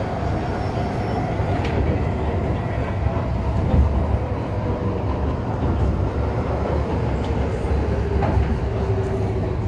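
MTR Kwun Tong Line M-Train, a Metro-Cammell electric multiple unit, running steadily at speed, heard from inside the car. A dense low rumble of wheels on the track lies under a steady motor hum, with a couple of faint clicks.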